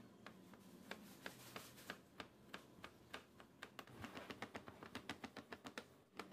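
Kitchen knife chopping peeled garlic cloves on a plastic cutting board: faint, sharp taps of the blade on the board, about three a second, quickening about four seconds in as the garlic is minced finely.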